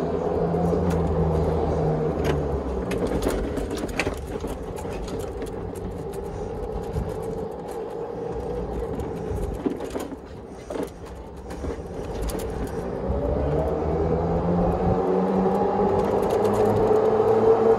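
Club Car golf cart running along. Its drive note drops and quietens through the middle, then rises again over the last few seconds as the cart speeds up.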